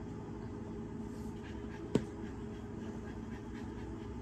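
A small makeup container is handled, with one sharp click about two seconds in over a steady low hum.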